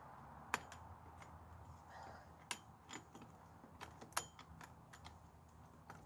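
Saw chain of an Oregon CS 1500 electric chainsaw clicking and rattling against the bar and drive sprocket as it is worked back on by hand, the saw not running: scattered light metallic clicks, with a few sharper ones about half a second, two and a half and four seconds in.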